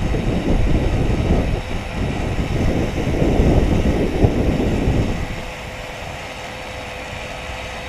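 Wind buffeting the microphone: a strong, rough rumble for about five seconds that then eases off, with a faint steady hum in the quieter last part.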